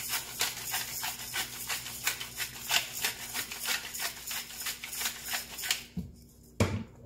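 Hand-twisted pepper grinder grinding peppercorns over a pan: a quick run of crunchy clicks for about six seconds that then stops, followed by a single loud knock near the end.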